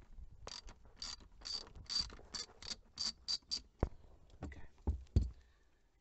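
Ratchet driver with a T20 Torx bit clicking as it backs out the small screws holding a steering wheel's button panels, about three clicks a second, followed by a few dull knocks of handling near the end.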